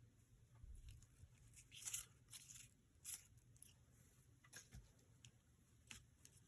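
Near silence with about half a dozen faint, brief rustles and clicks of paper and craft materials being handled.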